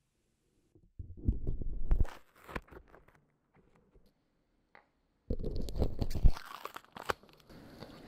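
Handling noise: rustling and rubbing with a deep rumble and light clicks, in two short bursts, about a second in and again around five seconds in, with faint ticks between.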